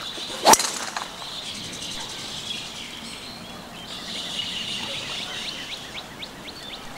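Golf club striking the ball on a tee shot: one sharp crack about half a second in. Birds chirping follow, with a run of short rising chirps in the second half.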